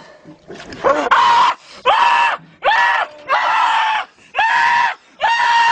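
Loud, high-pitched screaming: about six long screams in a row, each about half a second, with short breaks between.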